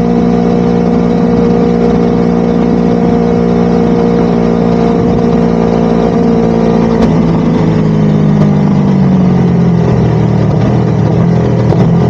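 Motorcycle engine with a freshly rebuilt engine, running steadily while being ridden; about seven seconds in, its pitch starts to drop as the revs fall off.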